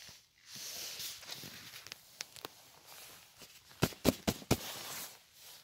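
Plastic tarp rustling and crinkling close to the microphone as it is handled. About four seconds in, four sharp crackles come in quick succession.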